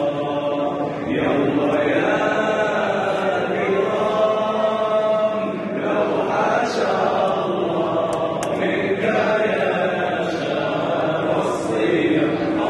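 A muezzin chanting a Ramadan farewell (Wada') chant solo into a handheld microphone, his voice carried over the mosque's loudspeakers. The melody moves in long, ornamented held notes without a break.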